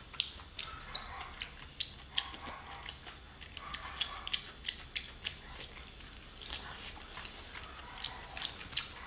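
Wet mouth sounds of eating a whole braised octopus in spicy sauce: an irregular run of sharp smacks and sucking clicks, two or three a second, as the octopus is bitten and chewed.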